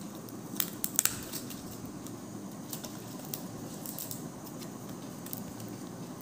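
Charred banana-leaf wrapping being peeled open by hand, the leaf giving a few sharp crackles and crinkles, loudest about a second in.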